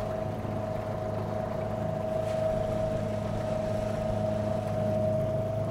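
Newport NT300 electric outboard running flat out at a steady pitch, a constant whine over the wash of water past the small aluminum hull; fairly noisy for an electric outboard.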